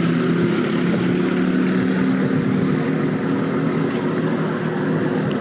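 A steady engine hum, even and unbroken, with no speech over it.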